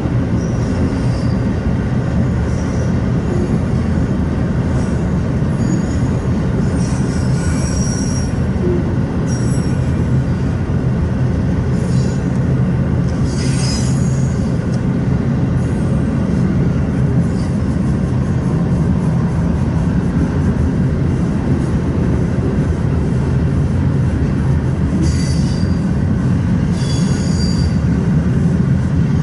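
Freight train cars rolling past, a steady heavy rumble of wheels on rail, with short high-pitched wheel squeals breaking in several times.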